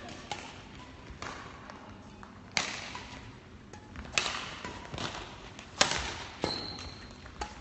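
Badminton rally: a series of sharp racket hits on a shuttlecock, roughly one every second or so, with the three loudest about a second and a half apart, each echoing in the hall. A brief high squeak is heard near the end.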